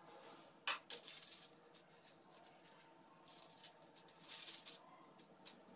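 Faint kitchen handling: a metal spoon clinks once against the foil-lined plate just under a second in, followed by scattered scraping and foil rustling as chicken filling is spooned onto a paratha and folded in.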